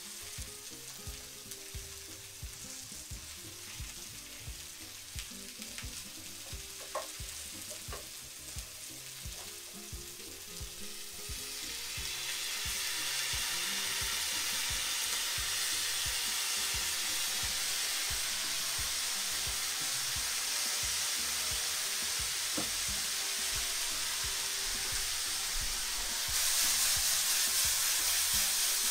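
Vegetables sizzling in a frying pan on a hot cast-iron stovetop. About eleven seconds in, the sizzle grows louder and stays that way as soy sauce goes into the hot pan. Near the end it rises again as the pan is tossed.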